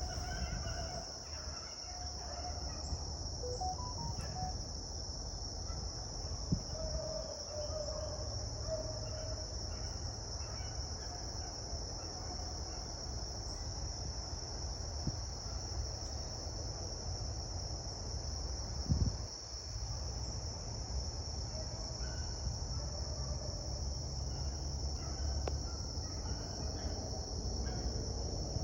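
Steady high-pitched chorus of insects, with faint distant beagle hound voices coming and going now and then. A short knock near two-thirds of the way through.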